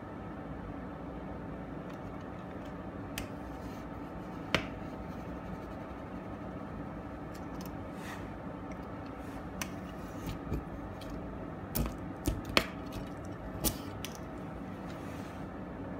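Light clicks and taps of a plastic rotary scraper being handled against window glass, scattered and sharpest about four and a half seconds in and in a cluster near the end, over a steady low hum.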